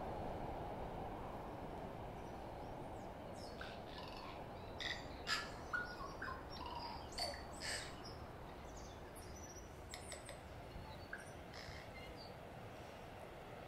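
Scattered short bird chirps and calls over a steady rushing background noise that slowly fades.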